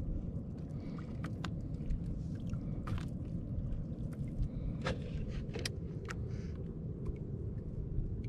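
Ambience in a small wooden outrigger boat on the sea: a steady low rumble, with scattered light clicks and taps while a baitfish is being threaded onto a fishing hook by hand.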